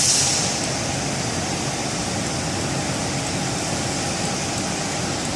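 Steady hum and noise of running machinery, with a short high hiss that fades out in the first half second.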